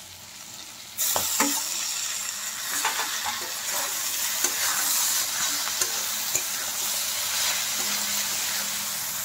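Spinach and vegetables sizzling in hot oil in a pan while a steel spatula stirs them, scraping and clicking against the pan. The sizzling starts abruptly about a second in.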